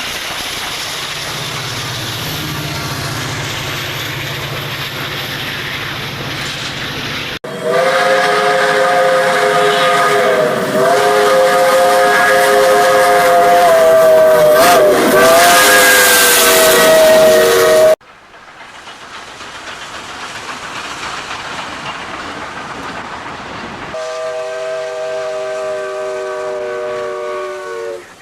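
Spliced railway sound effects: a train's steady running noise, then a sudden cut to a steam locomotive's chime whistle sounding one long chord of several notes for about ten seconds, its pitch wavering. After another cut comes quieter running noise, and then the chime whistle sounds again near the end, breaking into short toots.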